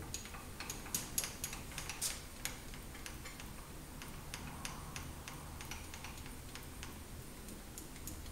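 Light, irregular clicking and ticking, several clicks a second, as the handwheel of an Advance cross-slide rotary table is cranked by hand to turn the table. The clicks are thickest in the first few seconds.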